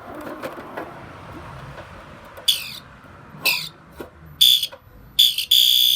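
Fire alarm horn set to low volume, temporal code 3, sounding a run of short, loud, buzzy blasts in the second half, the last one held longer. Before it there is handling and rustling noise with a few clicks.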